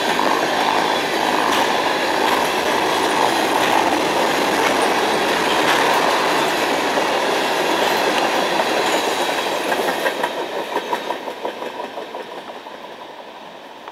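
Freight train of loaded tank cars rolling past at speed, a steady rumble of steel wheels on rail. About ten seconds in, the clickety-clack of wheels over rail joints stands out as the last cars go by, then fades as the train moves away.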